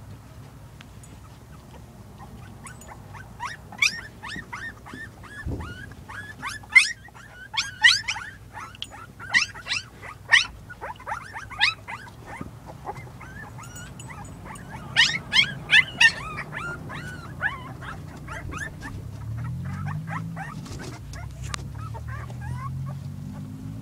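Young husky puppies squealing and whimpering in many short, high-pitched cries that fall in pitch, in two busy spells: a few seconds in, and again around the middle. Near the end the cries stop and a low hum comes in, rising slightly in pitch.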